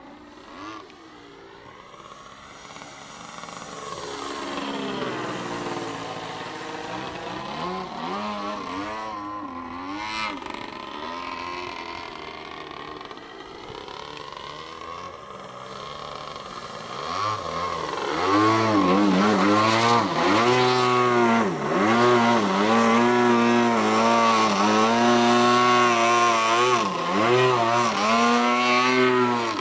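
A large RC aerobatic model airplane's engine and propeller running, its pitch rising and falling in long sweeps. It gets much louder about 18 seconds in.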